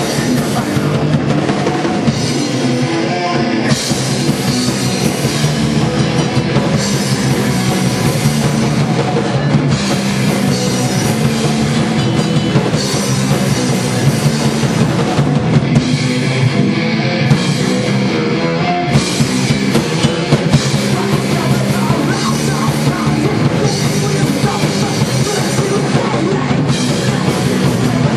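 Punk rock band playing a fast song live, the drum kit loud under amplified instruments.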